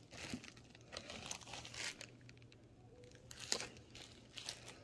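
Thin plastic blind bag crinkling as it is handled, in several short rustles.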